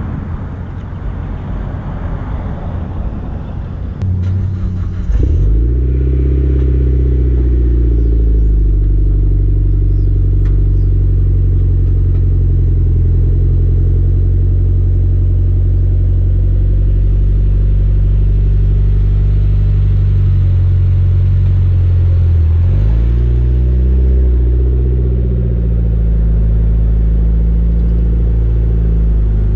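Mitsubishi Lancer Evolution X's turbocharged 2.0-litre four-cylinder engine cold-starting: it catches about five seconds in, the revs flare and then settle into a steady, fast cold idle. About two-thirds of the way through, the engine note dips and rises again as the car is driven forward.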